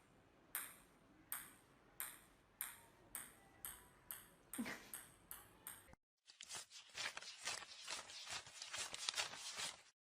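A run of short, ringing pings from something light and hard being struck, coming faster together over about six seconds. After a sudden cut, a dense patter of quick light ticks follows.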